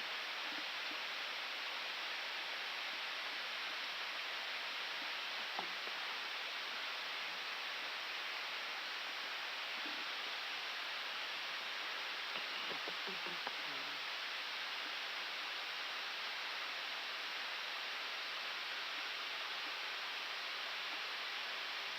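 Steady, even rush of airflow noise in an Airbus A319 cockpit in cruise flight.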